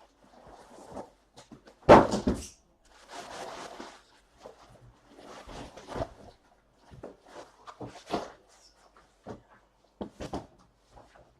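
Irregular knocks and rustling of things being handled on a table, the loudest a sharp thump about two seconds in.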